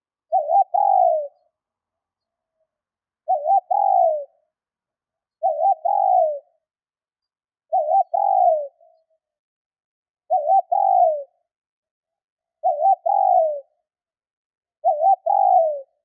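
Female spotted dove cooing: seven calls two to three seconds apart, each a quick double note followed by a longer note that falls away. This is the hen's call that draws in males.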